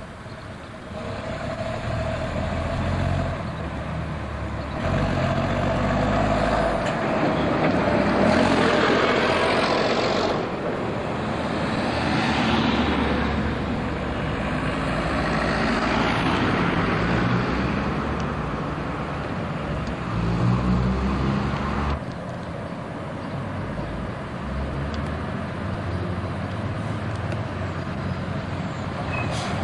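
Diesel engines of double-decker buses running and pulling past on the road, their engine note shifting with the revs, with surrounding road traffic.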